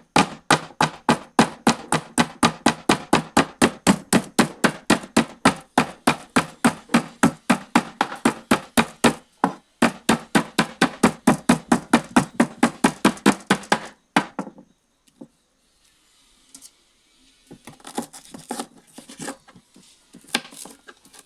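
Kitchen knife chopping rapidly and evenly on a cutting board, about four strokes a second, mincing ingredients finely; the chopping stops about fourteen seconds in. Quieter, irregular knocks follow near the end.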